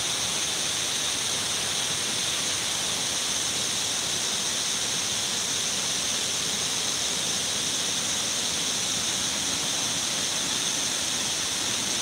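Steady, even rush of water from Shiraito Falls, a wide curtain of many thin streams pouring down a rock face into a pool.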